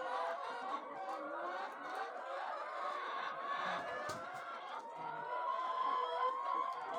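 Flock of chickens clucking and calling together, a steady chorus of many overlapping voices.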